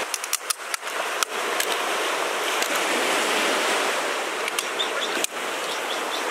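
Steady sea surf washing on a beach, with a quick run of sharp cracks in the first second or so and a couple more near the end as teeth break a cooked crab's shell.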